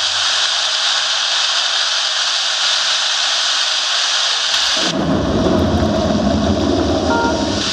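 Recorded sound of rushing water playing over the theatre's sound system: a steady hiss, joined about five seconds in by a deep rumble. A few music notes come back in near the end.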